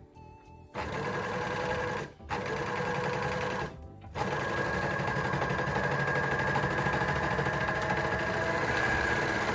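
Overlocker (serger) stitching a short seam, running in three goes: two short runs of about a second each, then a steady run of about five seconds.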